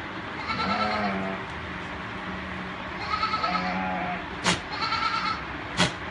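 A goat bleating: three drawn-out, wavering calls, each under a second long. Two sharp knocks come near the end.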